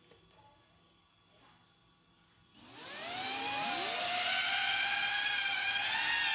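Axisflying Blue Cat 35 cinematic FPV drone's motors and ducted propellers spinning up about two and a half seconds in: a whine that rises quickly in pitch, then holds as a steady, wavering multi-tone buzz as the drone lifts off and hovers. Before that there is only faint room tone.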